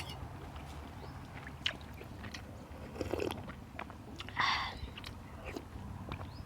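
A person eating noodle soup with fresh vegetables: close-up chewing and biting with small scattered clicks, and two short, louder noisy mouthfuls about three and four and a half seconds in.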